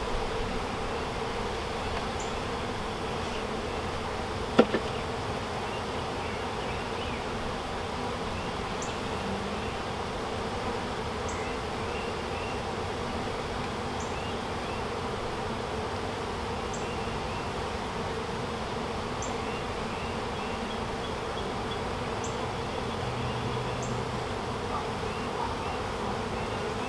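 A mass of honeybees from a freshly installed package buzzing in a steady hum around an open hive. One sharp knock about four and a half seconds in.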